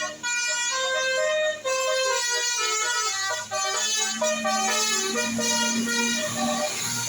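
Bus telolet horn, a set of air horns playing a quick tune of stepping notes, with a few brief breaks between phrases.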